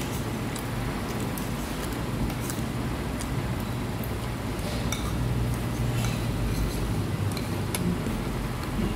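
Restaurant room tone: a steady low hum with a few faint, scattered clinks of cutlery and dishes.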